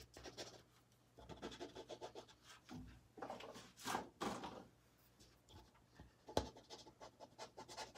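Soft pastel stick scratching and rubbing on pastel paper in short, irregular strokes, laying textured gray onto drawn rocks. The sound is faint, with a single sharper tap about six and a half seconds in.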